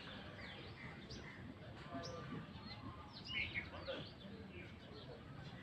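Birds chirping: a scatter of short, quick sweeping calls, a little louder a few seconds in.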